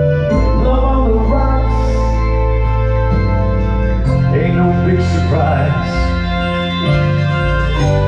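Live pop music: a man singing into a microphone over sustained chords and an electric bass line, the voice entering in phrases with the held chords underneath.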